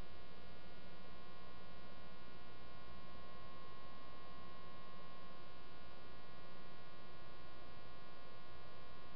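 Steady electrical hum with many evenly spaced overtones, unchanging throughout; no other sound stands out.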